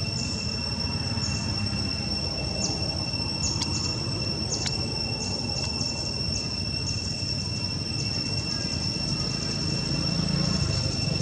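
Insects droning in a steady high-pitched whine, with many short chirps above it, over a low background rumble.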